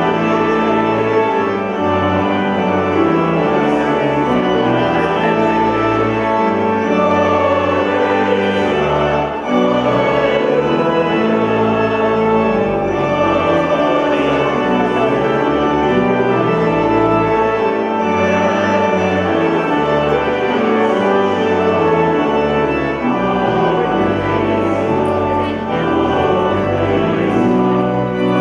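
Organ music: a slow run of held chords that change every second or so, filling the church.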